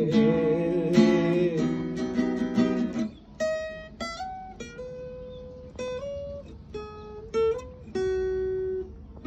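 Acoustic guitar strummed in full chords for about three seconds, then played as single picked notes, one at a time, each left to ring, in a slow melody.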